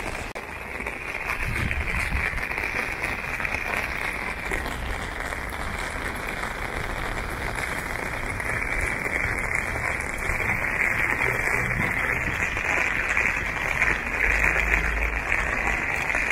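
Heavy rain falling in a steady hiss.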